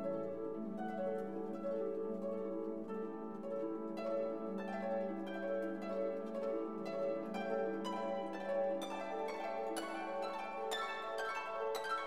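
Instrumental background music: a run of short plucked notes over a held low note.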